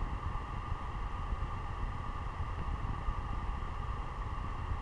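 A steady hum and hiss from running equipment, with a low rumble, no change in level.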